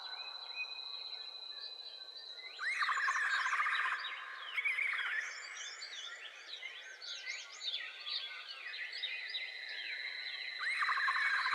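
Many birds chirping and whistling over a steady high-pitched whine, with a burst of dense rapid trilling about three seconds in and again near the end.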